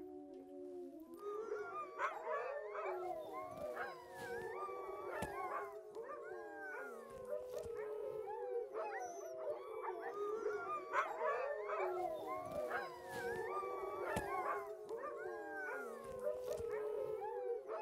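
A pack of sled dogs howling together, many voices rising and falling and overlapping in a continuous chorus.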